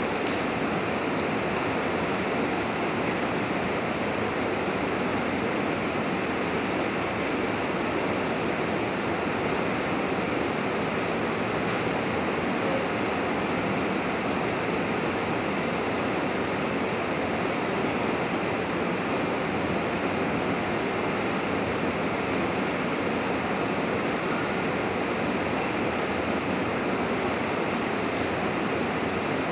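Steady, unchanging rushing noise of the fire test hall's exhaust ventilation.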